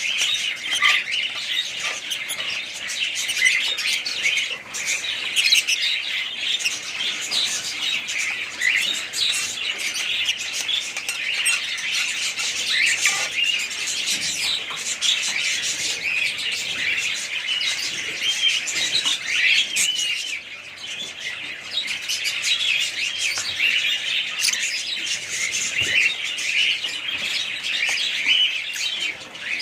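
A flock of small caged birds chirping and chattering continuously, many overlapping high calls at once with no break.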